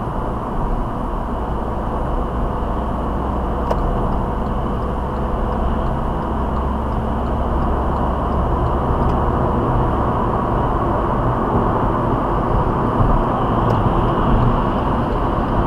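Steady road noise inside a small city car cruising at motorway speed: tyres on tarmac, wind and engine, heard through the dashcam's microphone. It grows slightly louder over the stretch.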